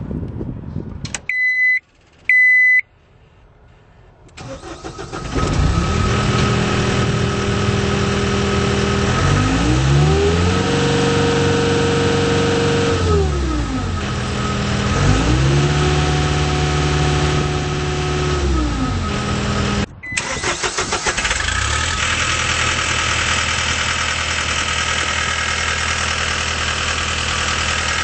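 Two short warning beeps, then the 2010 John Deere 318D skid steer's turbo diesel engine cranks and starts. It settles to an idle and is revved up twice, held high for a few seconds each time before dropping back. After a brief break about twenty seconds in, it runs steadily with a brighter, hissier sound.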